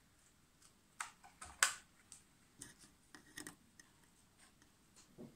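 Scissors snipping through a thin plastic sheet cut from a bottle: an uneven series of small crisp snips and clicks, the loudest about one and a half seconds in.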